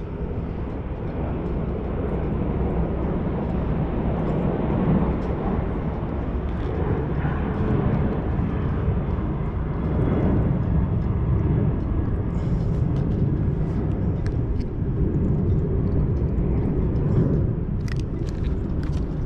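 Steady low roar of a jet aircraft, building over the first couple of seconds and then holding. A few light clicks from pliers working a hook out of a fish come about twelve and eighteen seconds in.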